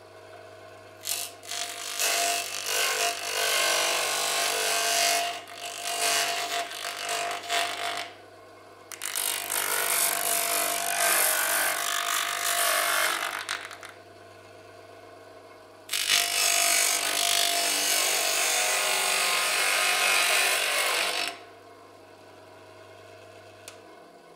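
VEB Galvanotechnik double-ended bench grinder running with a steady motor hum, a workpiece pressed to the wheel in three long spells of grinding, the first broken up into several short touches, with pauses in which only the motor hums. The hum cuts off near the end as the grinder stops.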